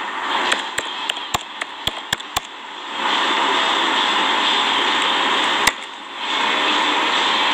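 Computer keyboard keys being typed: about eight quick clicks in the first few seconds, then one more click near the end. A steady rushing noise fills the rest.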